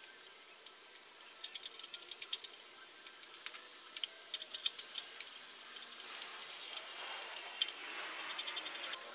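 Ratchet wrench clicking faintly in short runs of quick clicks, about a second and a half in and again around four to five seconds, with a soft scraping hiss of tool work building near the end.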